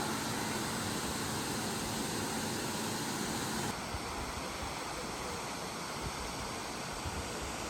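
Water rushing steadily over a stone mill dam. The rush changes abruptly about halfway through, turning slightly quieter and duller.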